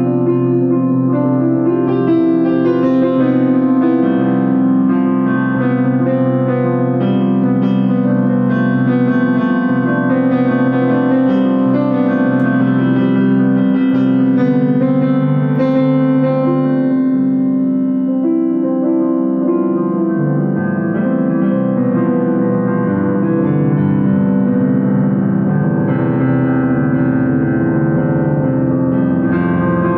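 Keyboard music, piano-like, playing long held chords at a steady level.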